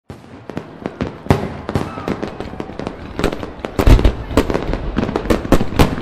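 Fireworks display: a dense, irregular run of bangs and crackles from bursting aerial shells, with the loudest, deepest boom just before four seconds in.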